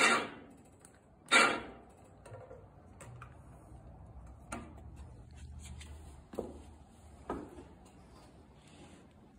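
Two short, loud bursts in the first second and a half. Then a faint low hum for about four seconds from the electric winch motor of the HM122 sawmill's head lift, moving the head by a fraction of an inch, with a few light clicks.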